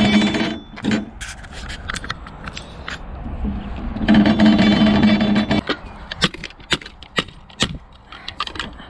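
Aluminium scrap being handled and dragged: a scraping sound with a steady pitched ring, twice, then a quick run of sharp metallic knocks and clanks.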